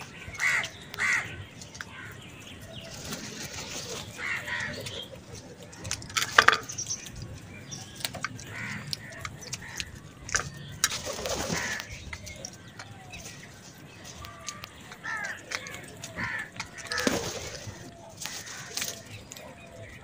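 Several house crows cawing, short harsh calls following one another every second or so, a few of them louder and harsher than the rest.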